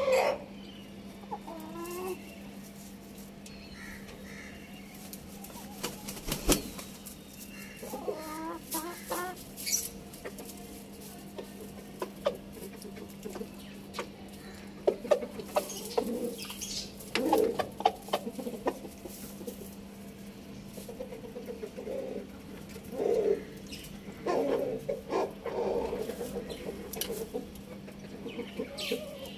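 Chickens clucking: short low calls in scattered groups, more of them in the second half, over a steady low hum.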